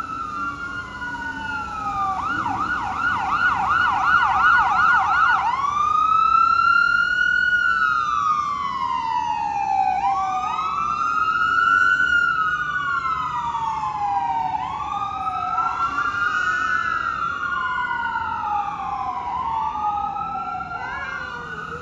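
Fire truck siren wailing, rising and falling about every four seconds, switching to a fast yelp about two seconds in for a few seconds before going back to the slow wail. In the second half a second siren's wail overlaps it, out of step.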